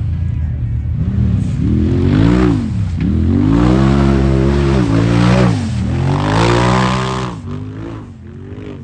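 Side-by-side UTV engine revving hard on a hill climb, the revs rising and falling several times under throttle, then fading away about seven seconds in.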